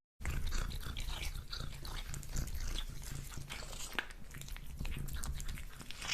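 A cat chewing and biting its food, with rapid irregular crunches and small clicks over a steady low hum.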